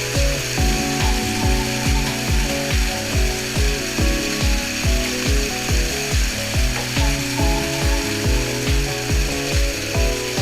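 Background music with a steady thumping beat, about two and a half beats a second, under held melodic notes.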